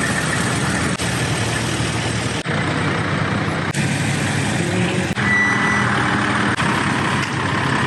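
Steady, loud mechanical noise made of several short segments that change abruptly every second or so, with a brief steady beep about five seconds in.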